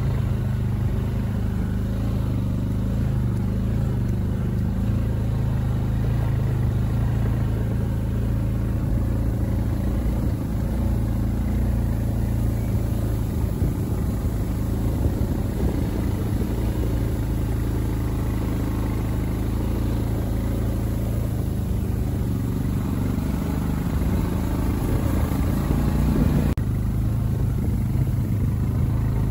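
Quad bike (ATV) engine running steadily while riding, with a steady low hum under rougher noise from the ride.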